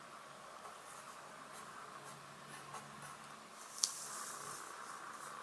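Sharpie felt-tip marker writing on paper: faint scratchy strokes as kana are drawn, with a sharp tick about four seconds in and a little louder rubbing just after.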